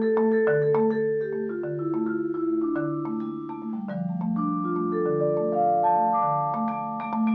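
Majestic vibraphone and a rosewood marimba played together with mallets: a continuous stream of struck notes, many of them ringing on as held tones under the quicker strokes.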